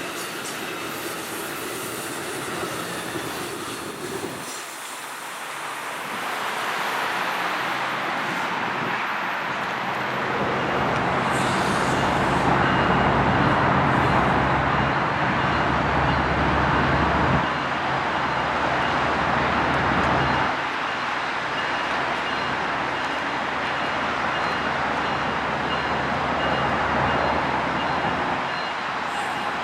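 Train rolling by just after sounding its horn: a steady rumble with rail noise that grows louder about six seconds in.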